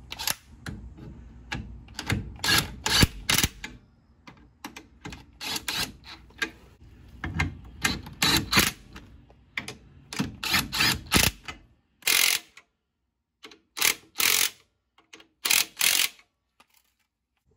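Hand ratchet wrench clicking in quick bursts, stroke after stroke, as the 7/16 U-bolt nuts on a rear leaf spring are snugged down evenly; the bursts come further apart near the end.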